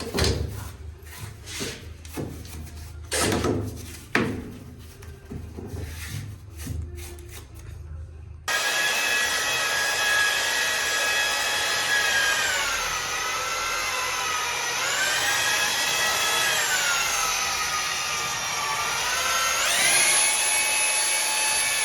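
A broom sweeping the floor in irregular scraping strokes. About eight seconds in, it cuts sharply to an electric drill motor running steadily, its pitch dipping and rising a few times as the speed changes.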